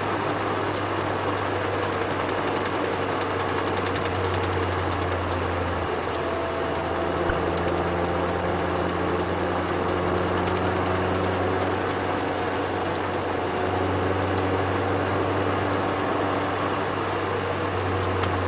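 Lotus Elise S engine running steadily, a constant low hum with no revving.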